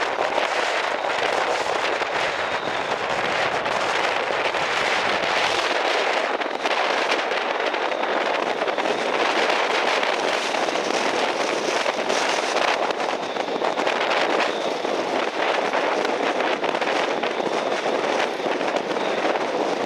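Strong onshore wind and big breaking surf making a loud, dense, crackling roar, with the deep rumble dropping away about six seconds in.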